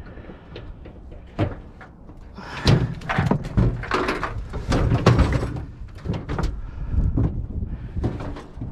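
Repeated clunks, knocks and rattling of items being shifted and packed into a vehicle, starting about two and a half seconds in.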